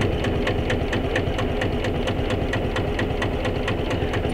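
Sabb 10 hp single-cylinder marine diesel idling slowly and evenly, with a regular knock about five times a second.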